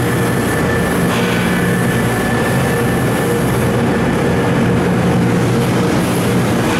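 1999 Mori Seiki SH-400 CNC horizontal machining center running, a loud steady mechanical hum with a faint high whine on top.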